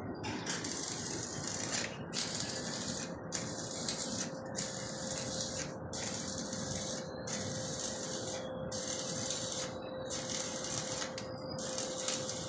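Rhythmic hissing scrape repeating about every 1.3 seconds, over a steady hum with a constant mid-pitched tone.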